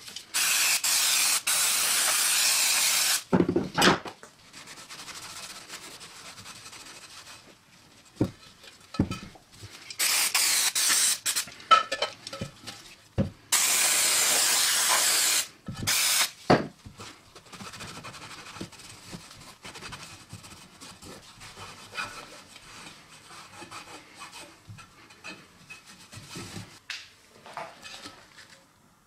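Aerosol can of brake and clutch cleaner spraying in three long hissing bursts, each a few seconds or less. Between and after the bursts come knocks and quieter rubbing as the sign is handled.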